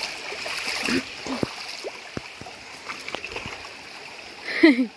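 Shallow river running over rocks, with a few small splashes in the water. Near the end comes one short, loud cry that falls steeply in pitch.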